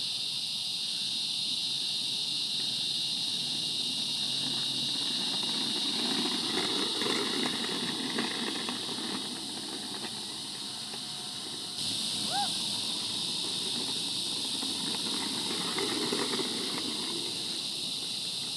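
Steady high-pitched hiss of an insect chorus. Twice, the rumble of a Ripstick caster board's wheels rolling over a rough concrete path swells up and fades.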